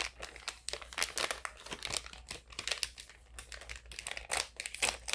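Plastic crinkling and crackling in quick, irregular snaps as the slime kit's pieces and their plastic are handled.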